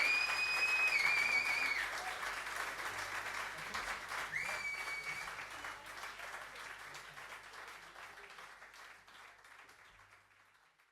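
Audience applauding after a live band performance, with two loud whistles from the crowd, one at the start held about two seconds and a shorter one about four seconds in. The applause fades steadily away to silence by the end.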